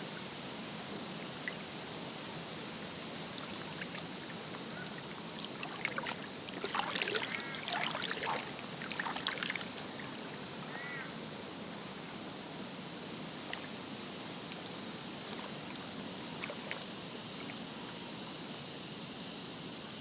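Lakeside ambience of steady, gentle water noise. From about six to nine and a half seconds in there is a louder patch of splashing mixed with short bird calls, and a few more brief calls come near the start and again a little later.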